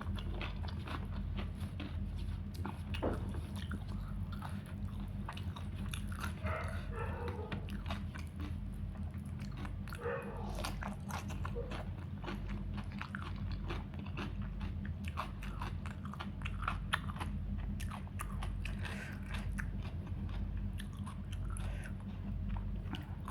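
Close-miked eating: steady chewing with frequent crisp crunches and mouth clicks, over a steady low hum.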